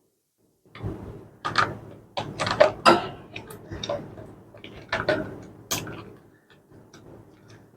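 Clicks, knocks and scraping of an SSD being pushed and slid into a laptop's hard-drive bay while it is not yet seating properly. The handling starts about a second in, comes in irregular clusters, and thins out near the end.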